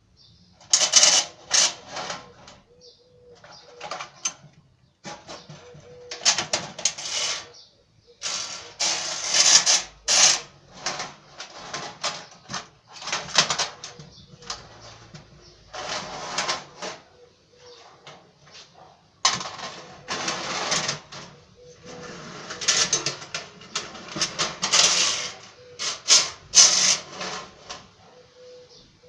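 Tin toy bus clattering along a lithographed tin toy track, in loud irregular bursts of a second or two with short pauses between.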